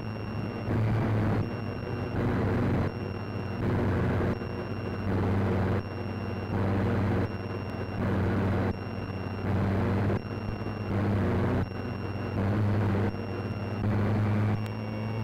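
A repeating electronic beeping pattern: about every three-quarters of a second it switches between a louder buzzing hum and a quieter stretch with a high, steady beep tone, over a constant hiss.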